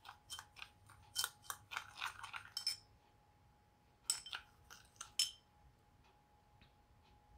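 Metal spoon stirring sugar, salt and ground chili in a cut-glass bowl: gritty scrapes and clinks against the glass, a run of them over the first three seconds and a shorter run about four seconds in.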